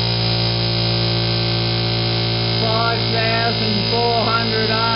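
Background music: a sustained chord-like drone, with a wavering melodic line coming in about halfway through.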